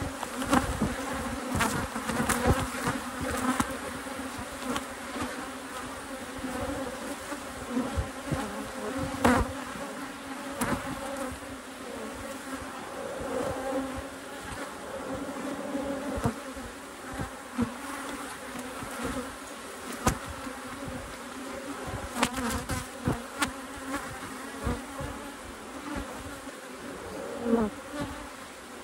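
Honeybees from an open hive buzzing in a steady, massed hum, with a few sharp knocks scattered through it.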